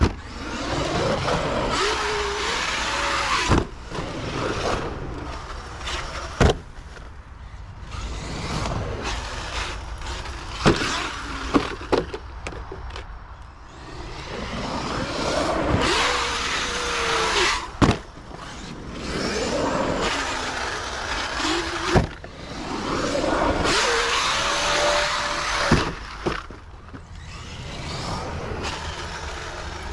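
Arrma Kraton 8S EXB electric RC truck driven hard: its 8S brushless motor whines up and down in pitch with each burst of throttle, and the truck lands with sharp thuds every few seconds.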